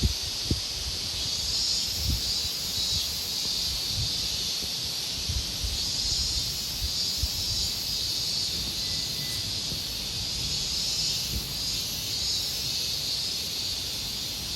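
A steady high-pitched insect chorus that swells and fades slowly, with wind gusting on the microphone as low rumbles now and then.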